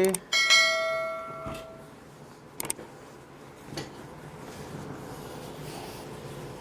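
A single ringing, chime-like tone that fades away over about a second and a half. A couple of faint clicks follow over low room noise.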